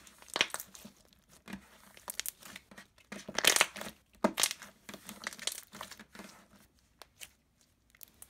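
Foam chunk slime, a white glue slime with foam pieces mixed in, squeezed, stretched and folded by hand: irregular clicks and rustles, loudest about three and a half seconds in, dying down near the end.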